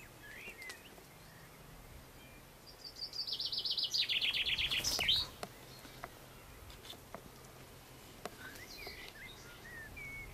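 A songbird singing one rapid trill of notes stepping down in pitch, lasting about two and a half seconds from roughly three seconds in and ending in a short flourish. Fainter bird chirps come before and after it.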